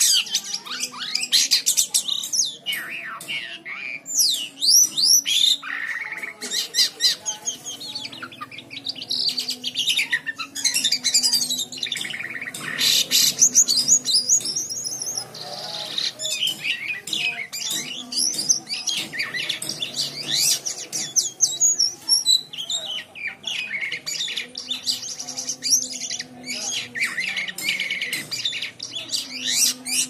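Caged kapasan (jalak kapas) songbird singing vigorously: a long, fast string of rising and falling whistles and trills, with only brief pauses.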